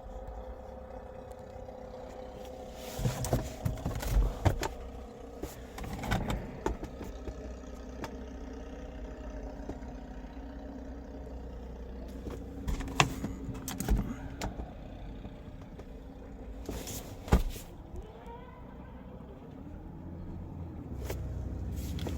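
Scattered knocks and clicks of handling inside an SUV's cabin, a few single sharp ones spread through, over a steady low hum.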